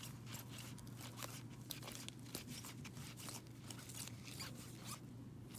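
Hard plastic card holders clicking and rustling as a stack of sports cards in top-loaders is flipped through by hand: a quick, irregular run of light clicks and scrapes. A faint steady hum sits underneath.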